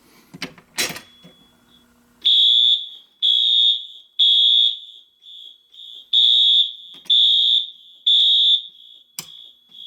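A pull station is pulled with a couple of sharp clicks. About two seconds in, fire alarm horns start sounding a high, loud tone in short blasts about once a second, grouped in threes with a pause between groups: the temporal-three evacuation pattern.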